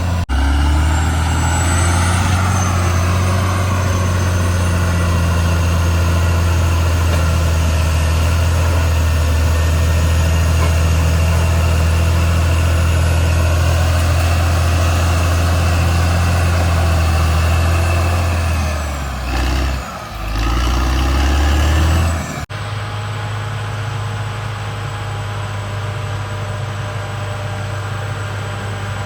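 Caterpillar D6R XL bulldozer's diesel engine running steadily under load. About two-thirds of the way in the engine note dips and recovers, then the sound cuts off suddenly to a quieter, steady engine sound.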